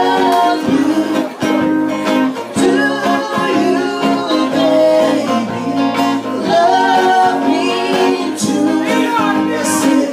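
Live Pacific island band music for dancing: strummed guitar with a steady rhythm and a singing voice over it.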